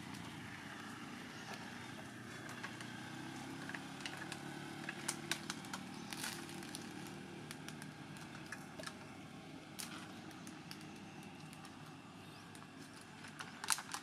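Steady low drone of distant motor traffic, with scattered sharp clicks and crackles, a cluster of them near the end.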